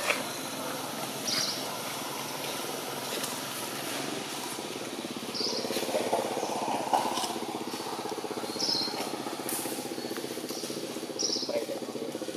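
A motor vehicle's engine running steadily at low revs, swelling a little about halfway through, with a steady insect hiss and four short bird chirps spread across it.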